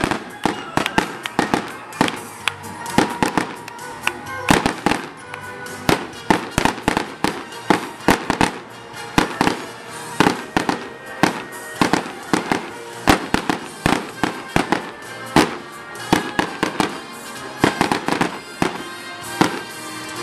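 Aerial fireworks bursting in quick, irregular succession: many sharp bangs and crackles, several a second. Music plays underneath.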